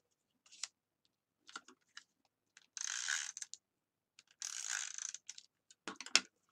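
Tape runner laying adhesive on paper card pieces: two short rasping strokes, with light paper taps and rustles around them and a sharp click near the end.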